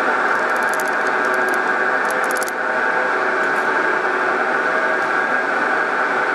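Milling machine running in the highest gear of its low range, a little bit loud, with a steady whine of several tones as an end mill cuts the metal of a brake caliper mount under cutting fluid. A few faint high ticks come in the first two and a half seconds.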